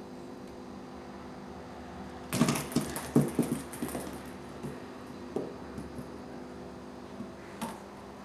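A cat inside a cardboard box batting at a ping pong ball through holes in the lid: a quick flurry of knocks and scratches on the cardboard about two seconds in, then a few lighter taps.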